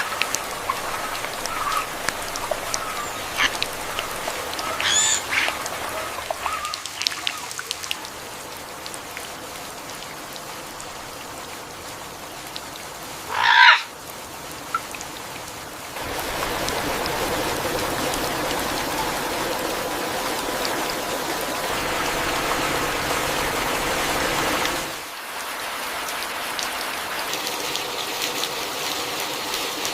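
Steady rain hiss with short animal calls scattered through the first several seconds and one loud call about halfway through. The rain sound changes abruptly three times.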